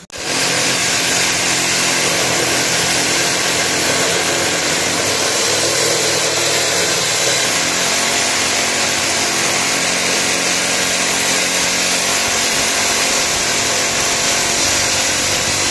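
Concrete slab cutter running steadily at full load, its saw blade cutting through a concrete slab with a loud, continuous grinding whine over the engine.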